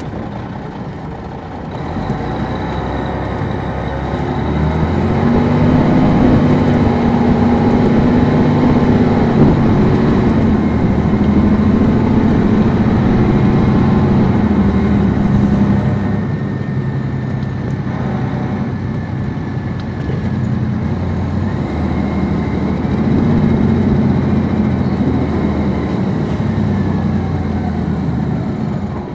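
The 2002 MCI D4500 coach's Detroit Diesel Series 60 engine heard from on board, pulling hard with a faint high whine over it. It eases off a little past halfway, then pulls again near the end.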